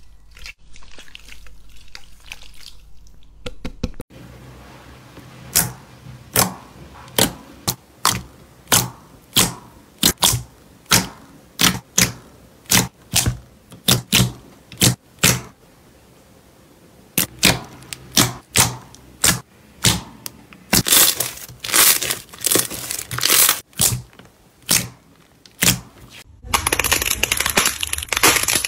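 Fingers pressing and kneading glossy slime, making a long run of sharp, wet clicking pops, about one or two a second, with a short lull partway through. It opens with a soft crackle from icy, crunchy slime and ends in dense crackling as a crunchy slime is squeezed.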